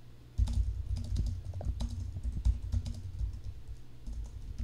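Typing on a computer keyboard: a quick, uneven run of key clicks that starts about half a second in and carries on.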